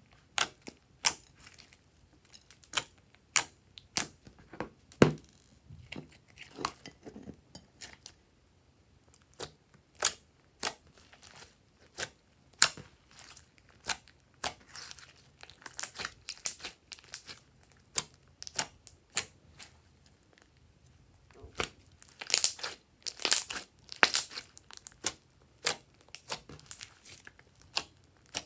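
Slime being squeezed and kneaded by hand, giving irregular sharp crackles and pops, with a brief lull about eight seconds in and a dense burst of crackling near the end.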